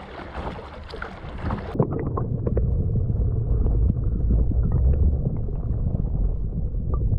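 Wind and water noise around a kayak. About two seconds in, the sound suddenly turns muffled: a strong low buffeting rumble with scattered knocks.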